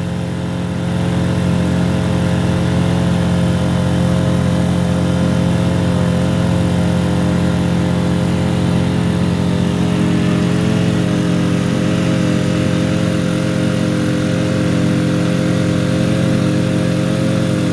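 Small outboard motor running steadily at a constant speed, the note holding even with only a slight wobble.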